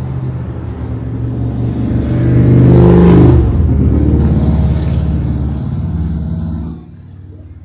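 A motor vehicle's engine running close by. It grows louder to a peak about three seconds in, then eases off and drops away sharply near the end.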